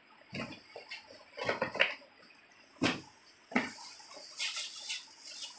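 A red cardboard shoebox and shoes being handled and set down on artificial turf: a scattered series of light knocks and clicks with brief rustling.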